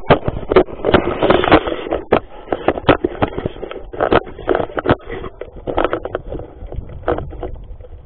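Irregular knocks and scraping rubs from a camera jostled on a moving horse, several knocks a second, busiest about a second in.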